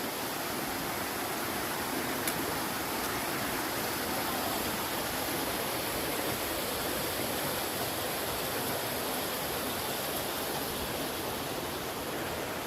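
Waterfall running, a steady rush of falling water.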